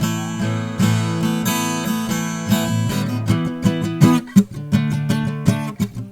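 Acoustic guitar played through a Realistic 33-1062 shotgun condenser mic set to close-proximity mode: chords ring out for the first few seconds, then give way to quicker, shorter notes.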